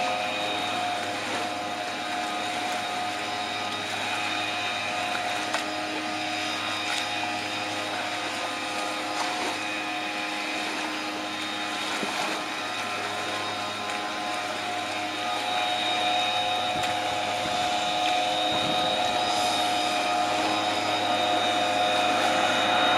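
A steady mechanical drone with several constant tones, getting a little louder in the second half.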